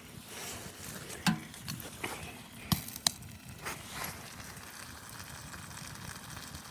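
A few scattered sharp clicks and knocks over a faint steady hiss.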